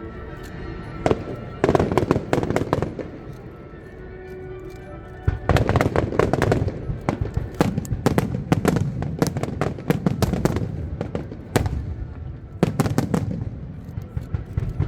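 Fireworks display: bangs and crackling bursts, scattered at first, then a dense barrage of rapid bangs from about five seconds in.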